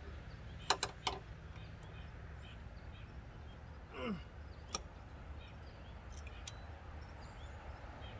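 Scattered sharp clicks and clinks of hand tools working a spark plug out of the engine, a quick cluster about a second in and single ones later, over a low steady hum. A short falling grunt or sigh about four seconds in.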